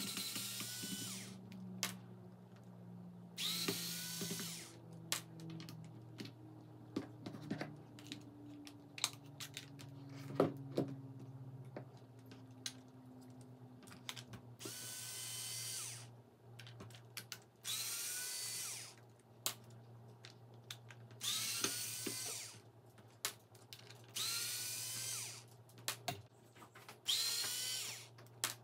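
A cordless power driver run in about seven short bursts of a second or so, the motor spinning up in pitch at the start of each, with small clicks and knocks of handling between the bursts.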